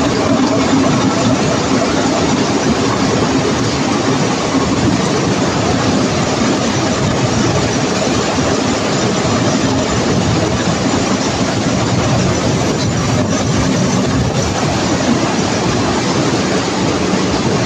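Screw thread-rolling machine running continuously: a steady, dense mechanical clatter with a low hum under it as screw blanks are rolled and fall out.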